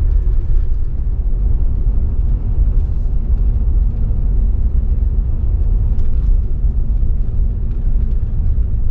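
Jeep Wrangler driving along a paved road, heard from inside the cabin: a steady low rumble of engine and tyre noise.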